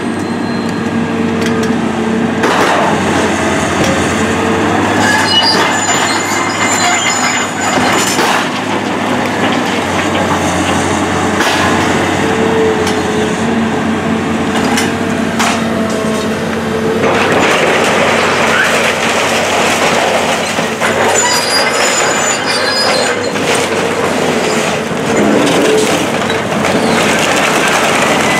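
Caterpillar hydraulic excavator working demolition debris: its diesel engine runs steadily while splintered wood and rubble crash and clatter as the bucket dumps into a trailer and scoops from the pile. A few sharp crashes stand out, and the clatter of debris grows denser over the last third.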